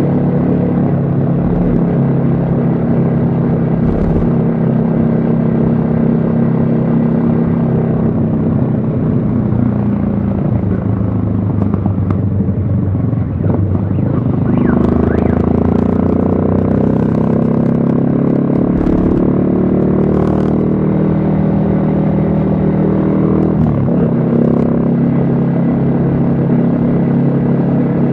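Yamaha XSR155's single-cylinder engine running under way. The revs fall off from about ten seconds in, then rise steadily in a pull from about fourteen seconds. They drop suddenly near the end in an upshift and settle to a steady cruise.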